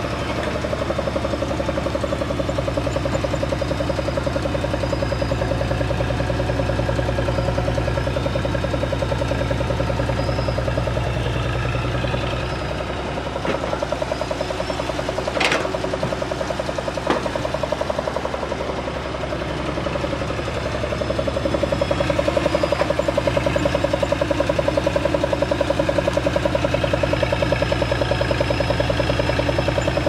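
Caterpillar E140 hydraulic excavator's diesel engine running steadily while the machine digs and dumps soil. A few sharp knocks come near the middle, and the engine grows louder about two-thirds of the way through.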